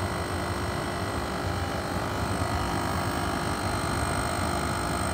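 Used Japanese 100 V diesel oil burner running: its blower fan hums steadily under the rushing noise of the oil flame jetting from the burner head, with a constant low tone and a faint high whine. It grows slightly louder about two seconds in.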